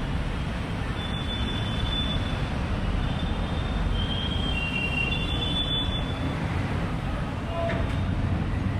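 Steady noise of busy street traffic, with a series of thin, high-pitched squeals overlapping one another through it.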